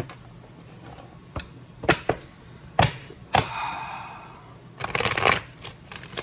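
Tarot cards being handled: several sharp separate card snaps and taps, then a quick burst of rapid clicking as the deck is shuffled about five seconds in.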